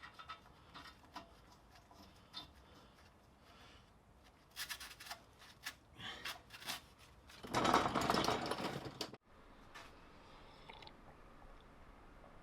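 Scattered clicks and knocks of hand tools and metal parts while a bolt is fitted under the vehicle. About three-quarters of the way through there is a louder noisy stretch lasting over a second, which cuts off suddenly.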